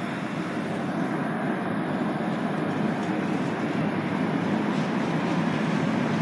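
Cabin noise of a Montreal Metro Azur rubber-tyred train pulling out of a station: steady rolling and traction noise that slowly grows louder as it picks up speed.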